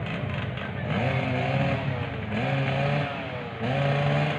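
Racing motorcycle engine revving hard three times, its pitch climbing quickly and then sagging between each rev.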